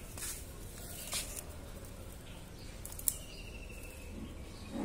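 Outdoor ambience with a bird giving a short, slightly falling call about three seconds in, and a few sharp clicks, the loudest at about the same moment.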